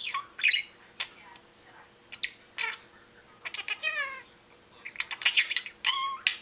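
Budgerigar chattering in a high, squeaky voice in several short bursts, mimicking human speech: a phrase like "What did ya doo?" in the middle and a short "Huh?" near the end, mixed with little chirps.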